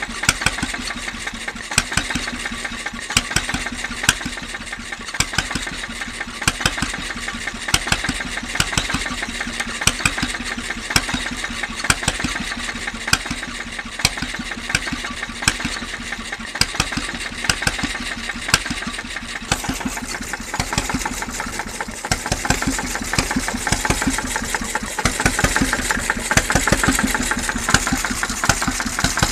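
A 1933 Lidan 5 hp single-cylinder hot-bulb (semi-diesel) marine engine running steadily, with an even rhythm of sharp knocks from its firing strokes. About two-thirds of the way in the sound turns brighter and more clattery.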